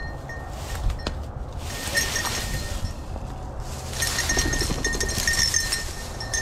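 Rustling and footsteps through dry grass and brush with wind on the microphone, over a light metallic jingling. From about four seconds in the rustling grows louder as a hen pheasant flushes.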